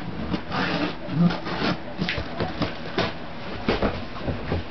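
A taped cardboard box being opened by hand: a string of short rips, scrapes and rustles of packing tape and cardboard.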